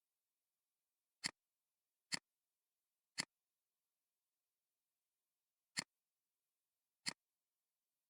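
Five single sharp clicks, irregularly spaced, from a computer mouse button being clicked while working in modelling software.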